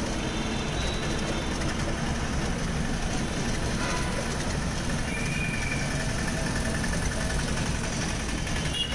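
Street traffic at a bus stand: idling bus and auto-rickshaw engines make a steady low rumble.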